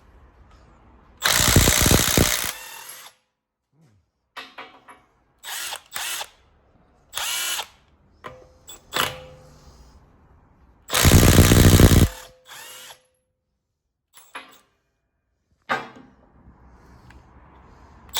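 Milwaukee M12 2564-20 3/8-inch cordless right-angle impact wrench hammering on 21 mm wheel lug nuts. It gives two long runs of about a second each, with several short bursts between them.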